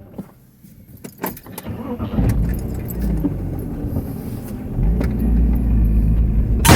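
A car engine running, growing louder from about two seconds in, with light rattling over it; a sudden loud, harsh burst of noise right at the end.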